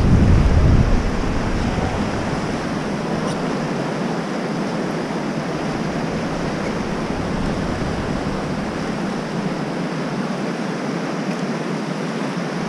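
Whitewater river rapids rushing steadily around an inflatable raft. A low rumble of wind on the microphone in the first second.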